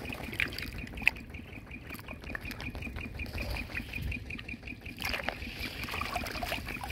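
Water trickling and dripping from handfuls of freshwater snails lifted out of shallow muddy water, with the shells clicking against each other now and then, one sharp click about a second in. A steady, rapid high-pitched chirping pulses in the background.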